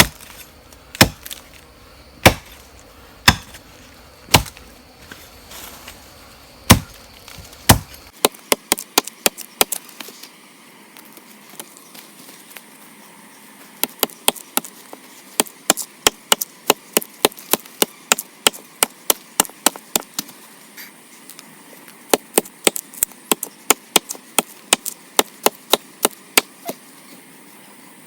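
Repeated chopping blows into the wood of a tree stump, being split open to reach a wild bee nest in its hollow: single heavy strokes about a second apart, then quicker runs of lighter hacks, with insects buzzing faintly throughout.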